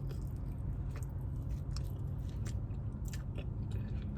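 Close-up chewing and biting of fast food, with many small wet, crunchy clicks at an uneven rate. A steady low hum runs underneath.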